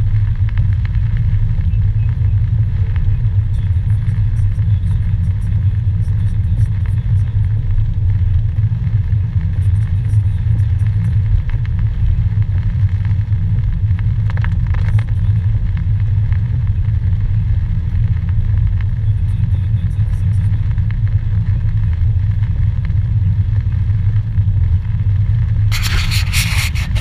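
Car driving on a wet road, heard inside the cabin as a steady low rumble of engine and tyres. A short rustling scrape comes near the end.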